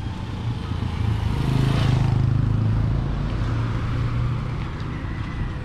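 A motor vehicle driving past, its engine hum swelling about a second in, loudest around two seconds, then fading away.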